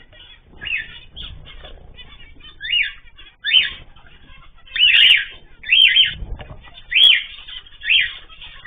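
Caged pet birds calling over and over: loud chirps that rise and fall in pitch, coming about once a second, with softer twittering between them.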